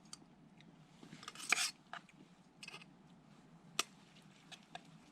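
Faint, scattered clicks and light scrapes of a utensil against a metal camp pot while eating, with one short louder scuffle about a second and a half in and a sharp click near the end.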